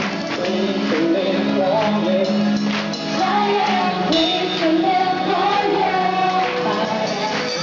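A live band playing a Christian worship song with singers, female voices among them, singing the melody over a steady bass note.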